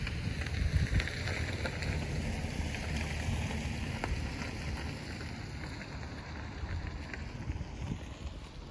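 Wind buffeting the microphone: a steady low rumble with a hiss of breeze above it.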